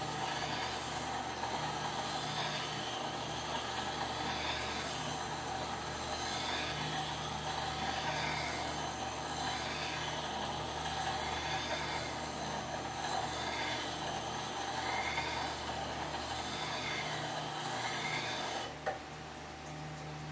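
WEN 4270 10-inch wet sharpener running with a steady motor hum while a steel blade is held to its turning whetstone, giving a scraping, grinding noise that swells about once a second as the blade is worked across the stone. Near the end the grinding stops suddenly with a click as the blade comes off the wheel, leaving only the hum.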